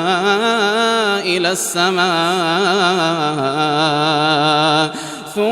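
A male voice reciting the Quran in melodic tajweed, holding long notes that waver up and down in pitch. There is a brief break about a second and a half in and a short pause for breath near the end.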